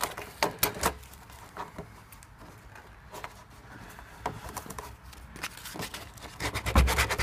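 Sandpaper rubbing and scratching around the edge of a drilled hole in a plastic barrel, smoothing it so a tap's washer will seal. It comes in short scattered strokes, sparse in the middle, then quick, close strokes louder near the end.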